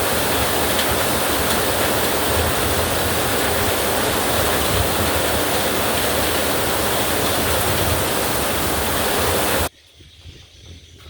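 Steady heavy rain, a dense even hiss with no thunder. It cuts off abruptly near the end, leaving a much quieter background.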